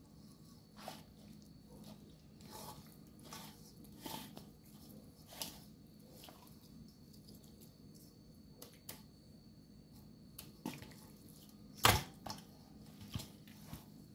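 Hands squishing and slapping a marinade-coated raw pork leg in a metal bowl: irregular wet squelches and smacks, with one sharper slap a couple of seconds before the end.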